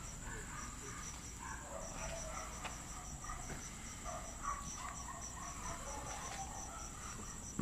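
Crickets chirping at night: a steady high trill with a rapid pulsed chirp beneath it, about five chirps a second.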